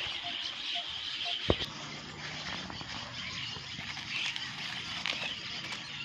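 Outdoor ambience: a steady high hiss, one sharp knock about a second and a half in, then a low steady hum, as of a distant motor.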